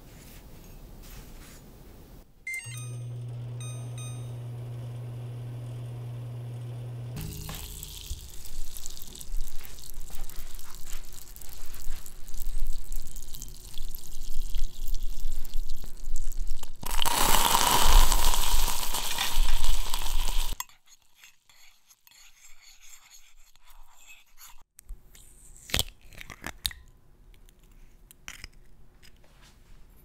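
A microwave oven runs with a steady low hum for a few seconds. Then hot sugar caramel bubbles and sizzles in a ceramic mug, growing to a loud hiss that cuts off suddenly, followed by a few light clicks and knocks.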